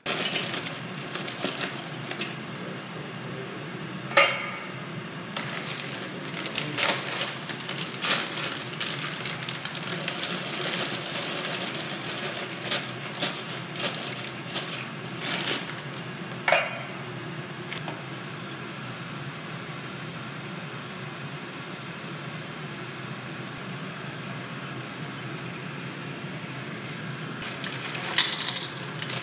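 Cookware being handled on an induction hob: a steel pot and frying pan knocked and clinked a few times, with a spatula scraping in the pan near the end, over a steady hiss.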